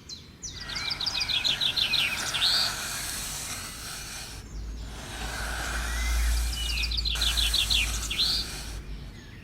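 Bird song over a steady outdoor background hiss. The bird sings the same phrase twice, about five seconds apart: a quick run of high chirps ending in a rising whistle.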